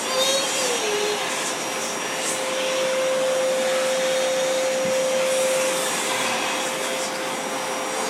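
Vacuum cleaner running steadily: an even rushing noise with a motor whine that grows stronger for a few seconds in the middle.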